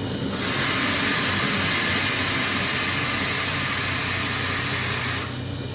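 Compressed air hissing out of a KAESER 300-litre air receiver as pressure is let off, starting sharply about half a second in and cutting off after about five seconds. Underneath is the steady hum of a KAESER SM11 7.5 kW screw compressor running.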